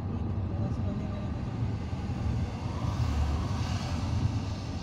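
Road noise heard from inside a moving vehicle: a steady low rumble of tyres and engine, with a hiss that swells briefly about three seconds in.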